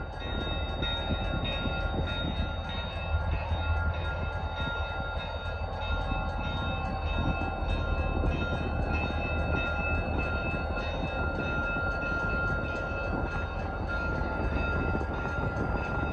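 Diesel locomotive running light, its engine rumbling steadily as it moves along the track, with steady high-pitched whines over the rumble.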